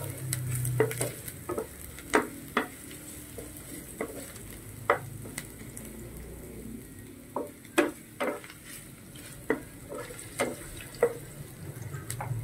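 Julienned ginger frying in oil in a nonstick pan with a light sizzle, stirred with a wooden spatula that knocks and scrapes against the pan at irregular moments.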